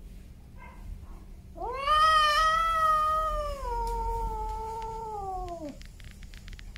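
A male domestic cat's single long yowl of about four seconds: it swells up quickly, holds, slowly sinks in pitch and falls away at the end. A faint short call comes just before it.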